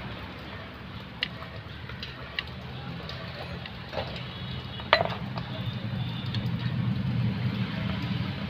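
Thin flathead screwdriver prying at the small lock clip on the rusty hand-brake lever of a Maruti Suzuki Omni rear brake shoe: scattered sharp metal clicks and light scraping, the loudest click about five seconds in, over a steady low hum.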